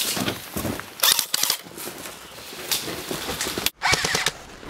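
Airsoft guns firing: scattered sharp cracks and short quick strings of shots, with the loudest cluster about a second in.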